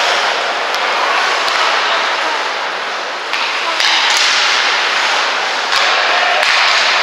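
Ice hockey game sounds: a steady scraping hiss of skates on the ice, with a few sharp stick-and-puck clacks.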